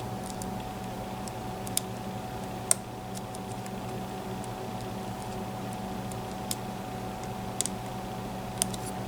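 Sparse small metallic clicks and ticks of a lock pick working the pin-in-pin tumblers inside a Mul-T-Lock MT5+ cylinder, irregular and a second or more apart, over a steady low hum.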